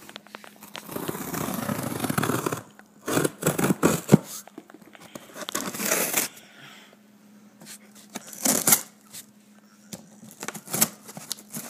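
A cardboard box being opened by hand: a long tearing of tape or cardboard starting about a second in, then several separate bursts of scraping, rustling and knocking as the flaps and packing are handled.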